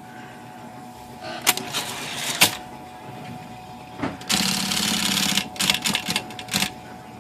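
Brother electric typewriter running with its motor humming steadily. A couple of sharp single strokes are followed, a little after halfway, by about a second of rapid continuous clatter from the mechanism, then several more quick strokes.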